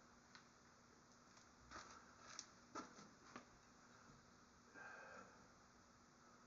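Near silence: faint room tone with a low steady hum, a few faint clicks and ticks in the middle, and a brief soft rustle about five seconds in.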